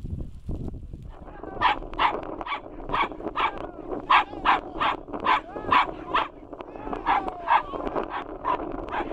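A dog barking repeatedly in short, sharp yaps, about two a second, starting about a second and a half in.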